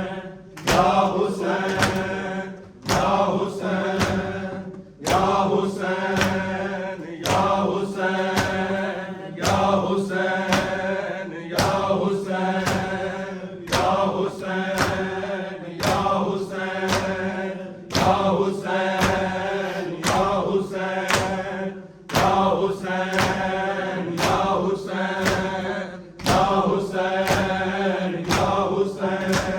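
Mourners chanting a noha in unison, phrase after phrase, over a steady beat of sharp slaps from rhythmic chest-beating (matam).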